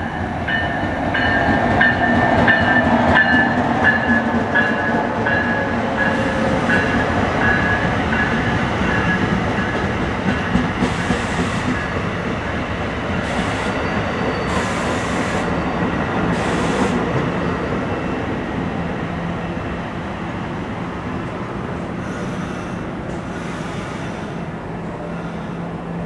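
NJ Transit ALP-46 electric locomotive and its bi-level passenger cars arriving and slowing: a steady rumble of wheels on rails, with a tone that falls in pitch over the first several seconds. A high tone pulses about twice a second for the first nine seconds, short bursts of hiss come in the middle, and the sound settles into a lower rumble near the end.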